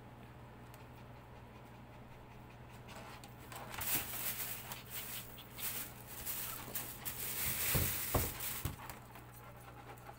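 A Maltese puppy being held and handled: rustling, scuffing and scratching of fur and hands, starting about three seconds in and running for several seconds, with a few sharp knocks near the end. A steady low hum sits underneath.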